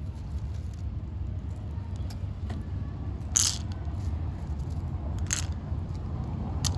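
Dry cat kibble dropped by hand onto a stone wall: two short clattering patters, about three and a half and five seconds in, and a sharp click near the end, over a low steady rumble of street traffic.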